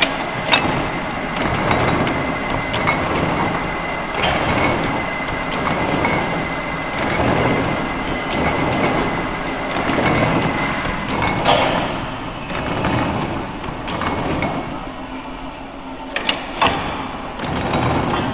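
Hexagonal wire netting machine running: a steady mechanical clatter with sharper metal knocks every few seconds, a close pair of them near the end. A thin steady whine runs under it through the first half.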